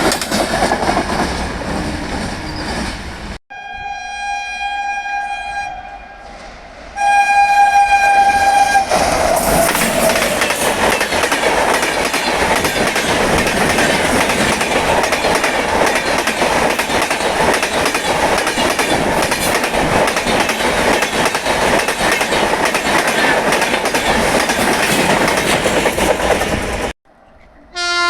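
A train's rumble and wheel noise, then after a cut a locomotive's twin-tone horn sounds twice: a quieter blast, then a louder one about 7 s in. A long stretch of loud, steady passing-train noise follows, wheels clattering over the rails, and after another cut a new horn blast starts right at the end.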